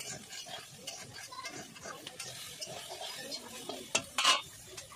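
Metal slotted spoon stirring soya chunks in a kadai of hot oil, scraping and clicking against the pan, with one louder clink about four seconds in.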